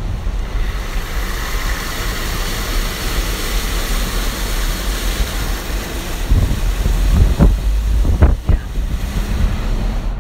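Steady rushing noise of storm wind and tyres on a rain-soaked, partly flooded road, with hurricane gusts buffeting the microphone in several heavy rumbles between six and nine seconds in.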